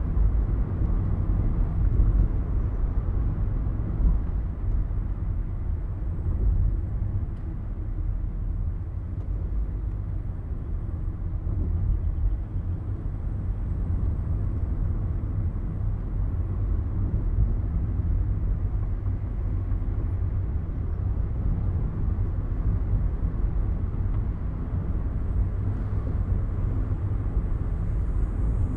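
A car driving along: a steady low rumble of engine and tyre road noise.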